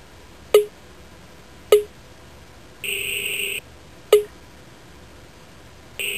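Star7 handheld's user-interface sound effects as objects on its touchscreen are tapped: three short, sharp blips that die away at once, and twice a longer buzzy electronic beep of under a second.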